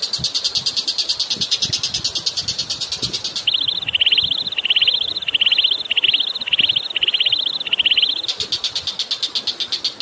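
Recorded masteran bird song: a fast, even, buzzy trill, broken from about three and a half to eight seconds in by a bird repeating one curving whistled note about eight times, roughly every half second. A running-water background lies beneath it.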